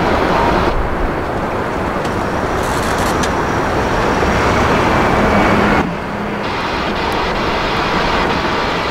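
Airbus A350-900 climbing away after takeoff, its Rolls-Royce Trent XWB engines at takeoff power: a steady, loud rumble of jet noise.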